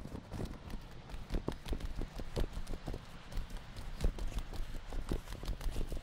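Footsteps of a person walking along a dirt trail and down its steps, a steady run of short scuffs and knocks at about two to three steps a second.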